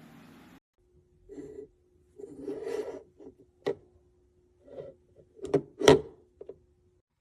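Handling noises from a small plastic device such as a pocket power bank: rubbing and scraping with several sharp clicks and knocks, the loudest about six seconds in, over a faint steady hum.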